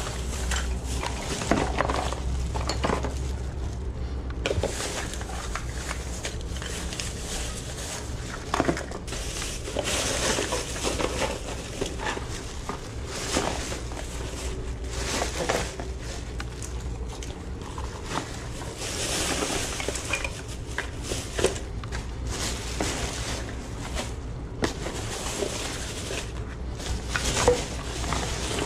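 Thin plastic shopping bags and a black trash bag rustling and crinkling while gloved hands rummage through packaged merchandise, with irregular clicks and clatters as packages knock together, over a low steady hum.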